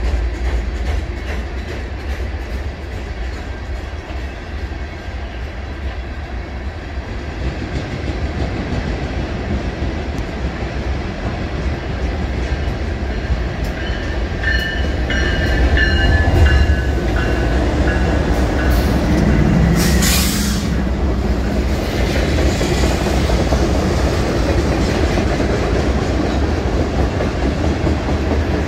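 Freight train cars rolling past with a steady low rumble. Wheels squeal at a high pitch for a few seconds midway, and there is a short loud hiss about twenty seconds in.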